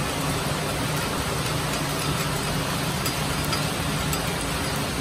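Heavy rain pouring steadily in a monsoon downpour: a dense, even hiss with a faint low hum underneath.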